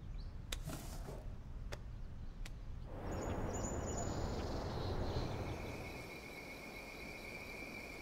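Quiet room hum with a few faint clicks gives way, about three seconds in, to outdoor evening ambience. A steady high insect trill joins it about five seconds in.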